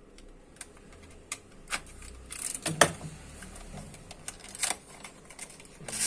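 Irregular clicks and taps of small plastic and metal laptop parts being handled and set down inside an opened notebook, with a sharper click about three seconds in and another near the end.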